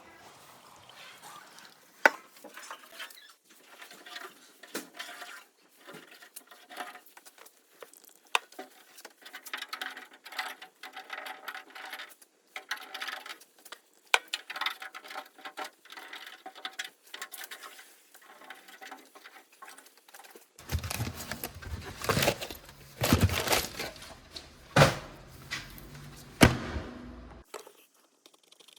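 Hand work on a car bonnet: irregular clicks, taps and light rattling of parts being handled, with a louder stretch of knocks and handling noise about three quarters of the way through.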